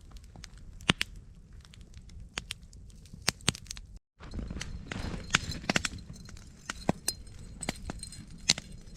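Wood campfire crackling with irregular sharp pops. A brief dropout about four seconds in, after which the crackle comes back denser.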